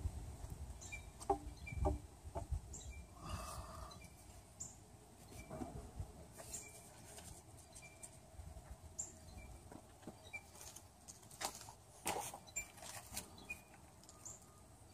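Quiet handling sounds of an oil pan being set onto the engine block and pressed down into its RTV bead: scattered light clicks and knocks of metal on metal, a few around the first couple of seconds and more near the last few seconds.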